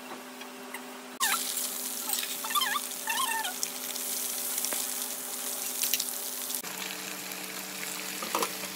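Tofu cubes sizzling in hot oil in a wok. The hiss starts suddenly about a second in and cuts off abruptly about two seconds before the end.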